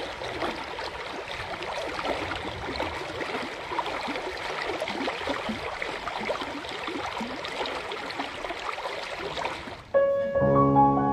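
Tidal rapids of a reversing falls, water rushing and gurgling over rocks and seaweed. Near the end it cuts abruptly to piano music.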